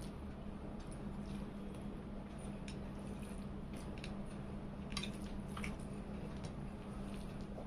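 Fingers squishing and mixing rice with chicken curry on a plate, with a few light clicks against the plate, over a steady low hum.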